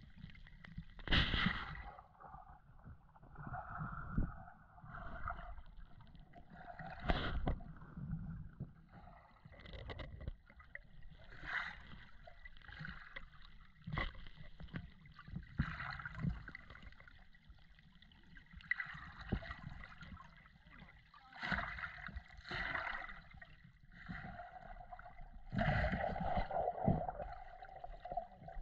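Creek water heard underwater through a submerged GoPro's waterproof housing: muffled gurgling and rushing that swells irregularly every second or two, with a few sharp knocks.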